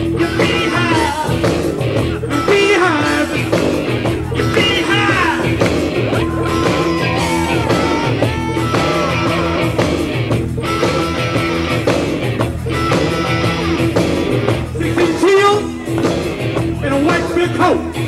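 Live rock band playing electric guitars, keyboard and drums, with a man singing over the music.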